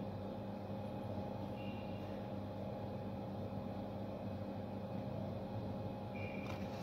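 Steady low electrical hum from a La Marzocco Linea Classic espresso machine as its coffee boiler heats toward the newly set temperature.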